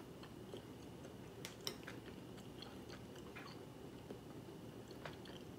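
Faint eating sounds: stainless steel chopsticks clicking a few times against a ceramic plate, with soft chewing.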